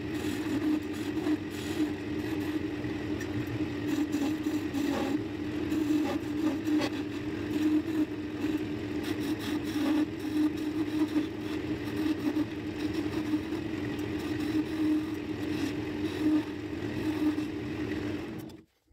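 Wood lathe running with a steady hum while a hand-held turning tool cuts a mahogany spindle, scraping and shaving the wood with irregular scratchy catches. The sound cuts off abruptly near the end.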